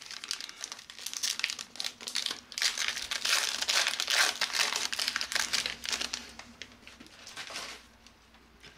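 Foil wrapper of an Upper Deck hockey card hobby pack being torn open and crumpled by hand, a dense crinkling that is loudest in the middle and dies away near the end.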